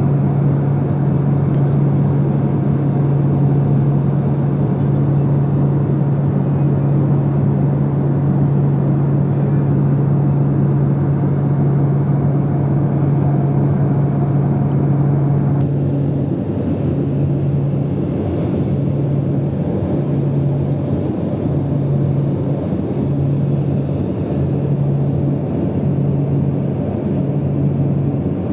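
A steady engine drone with a strong low hum over a wide rumble. About halfway through, the hum begins to pulse, swelling and dropping every second and a half or so.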